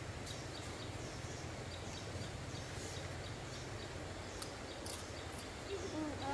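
Outdoor rural ambience: a steady low hum with faint, repeated high bird-like chirps. Near the end an animal's call begins, falling in pitch.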